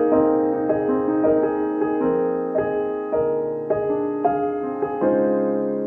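Solo piano playing gentle broken-chord notes, about two a second, with the last chord held and dying away near the end.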